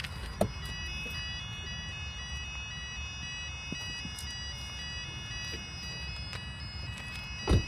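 Flat-sounding level crossing warning alarm starting about half a second in: steady high tones with a pulsing tone beating about twice a second. A loud thump near the end.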